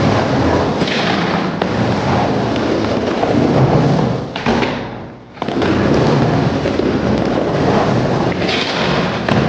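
Skateboard wheels rolling on a birch wood bowl, a steady loud rumble that drops away briefly about five seconds in and then comes back sharply.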